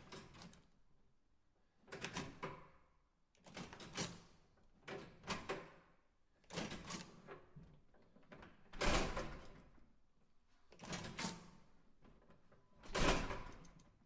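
A push-bar (panic bar) door being worked over and over, about eight times at intervals of roughly one and a half to two seconds, each a sharp clatter of the bar and latch. The two near the end of the sequence, around the middle and just before the close, are the loudest.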